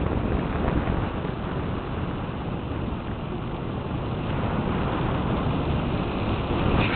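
Steady rushing noise of wind buffeting the microphone while moving at speed downhill, with no engine tone.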